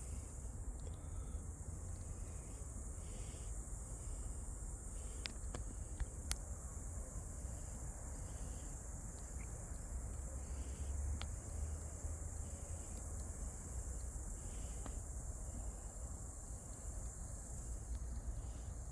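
Campfire crackling with a few sharp pops, over a steady high chirring of insects.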